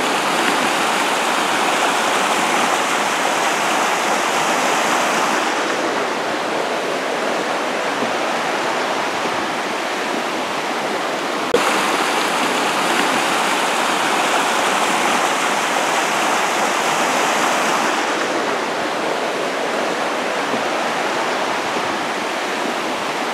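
Mountain creek rushing over rocks and small rapids: a steady, unbroken wash of water noise.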